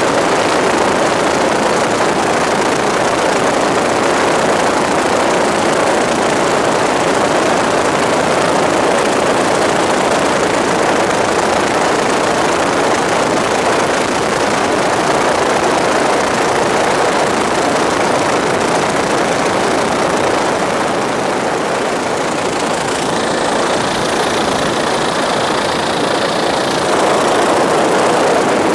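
Helicopter in flight heard from inside its cabin: the engine and rotor make a loud, steady noise.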